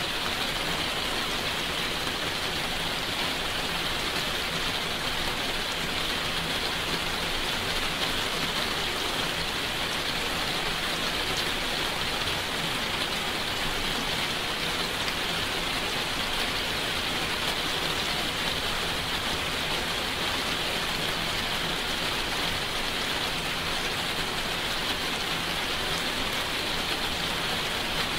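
Steady rainfall: an even hiss of rain with fine patter of individual drops, unchanging throughout.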